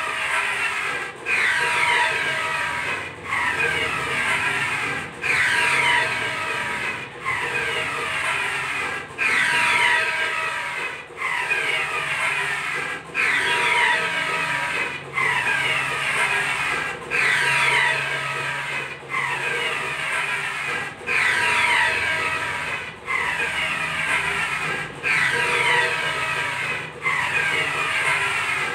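Large-format inkjet printer's print-head carriage running back and forth along its rail, one pass about every two seconds, with a brief break each time it turns.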